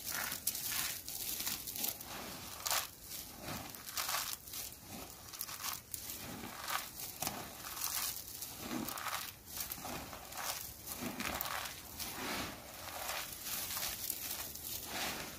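Dry grated soap shavings coated in starch being squeezed and crushed by hand: a continuous, irregular run of crisp crunches and crackles, several a second.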